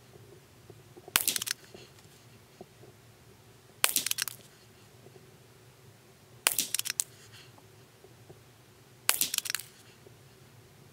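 Ruger American Rimfire bolt-action rifle firing standard-velocity .22 LR rounds, four shots about two and a half seconds apart, each a short sharp pop with a brief echo.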